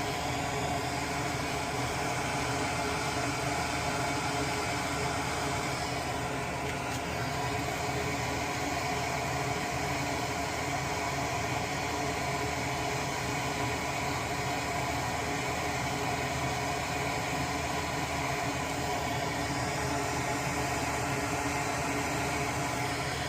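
Steady whirring hiss of a fan running continuously, with a faint low hum under it.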